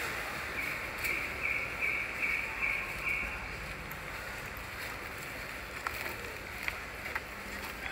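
Steady outdoor forest background hiss, with a run of about seven short, evenly spaced high calls in the first few seconds and a few faint clicks later on.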